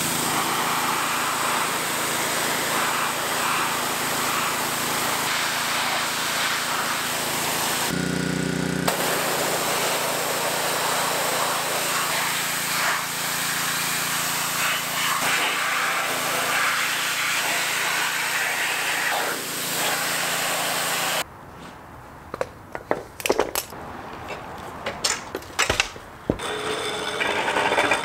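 Pressure washer running, its jet hissing steadily as it blasts grime off car suspension and transmission parts, with a low steady motor hum underneath. About two-thirds of the way through the spraying stops, leaving scattered sharp clicks and scrapes.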